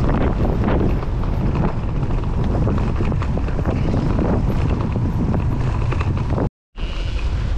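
Wind buffeting the microphone over the rumble and clatter of an electric mountain bike riding a rough trail, with many small knocks and rattles from the bike. The sound drops out for a moment near the end.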